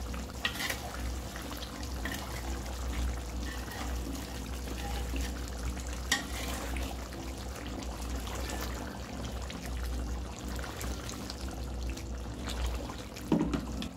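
Catfish curry simmering in a wok: a soft bubbling and crackling of the sauce over a low steady hum, with small clicks here and there and a knock near the end.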